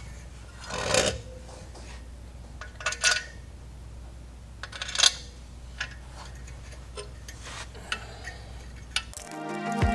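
Metal clinks and scrapes as a clutch pressure plate and its bolts are handled and set against the flywheel: a few separate clinks, roughly two seconds apart. Background music comes in near the end.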